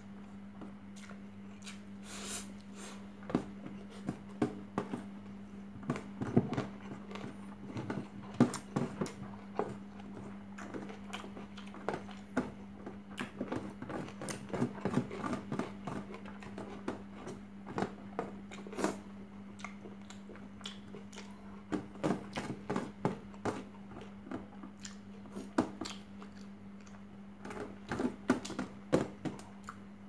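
Eating by hand: fingers squeezing and scooping rice and chicken on a stainless-steel tray, with chewing and mouth smacks, heard as many small irregular clicks and smacks over a steady low hum.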